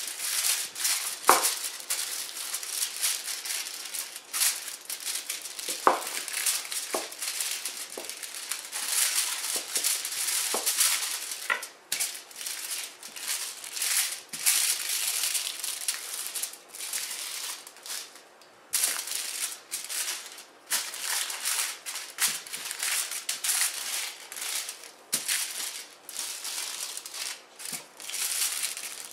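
Aluminium foil crinkling and crackling as a wooden rolling pin is pushed back and forth over ground beef between two foil sheets, in repeated strokes of a second or two with a few sharp clicks.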